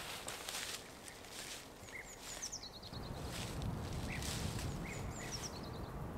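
Outdoor ambience: small birds chirping, with two quick descending runs of short high notes, over a regularly repeating rustle. A low rumble comes in about halfway through.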